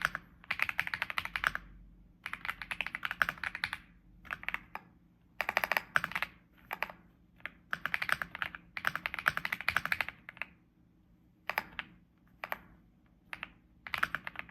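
Typing on an AUSDOM tri-mode mechanical keyboard with a gasket-mounted, muffler-damped build. The key presses come in quick runs of a second or two with short pauses between.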